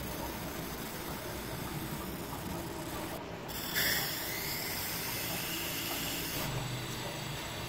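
Steady hiss, with a whoosh about four seconds in that sweeps down in pitch.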